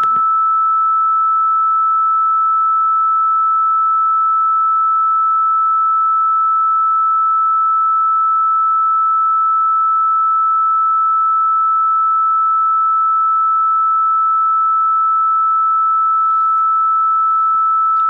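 A single pure electronic sine tone held at one high pitch, steady in level throughout.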